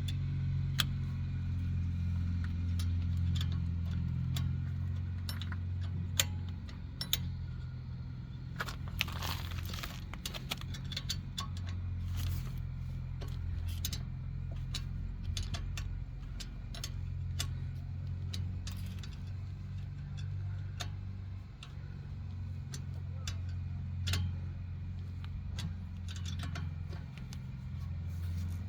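Irregular metallic clicks and clinks of hand tools on the rear brake caliper's bolts as they are tightened, over a steady low hum.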